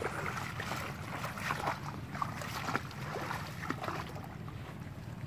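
Irregular light splashing and rustling of water and water-hyacinth leaves as a cast net is worked in the shallows, over a steady low rumble.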